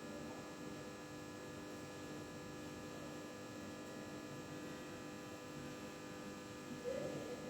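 Old desktop computer running with a faint steady hum made of several constant tones, with a brief wavering swell near the end.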